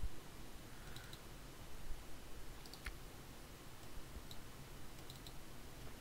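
A handful of faint, spaced-out computer mouse clicks over low room tone.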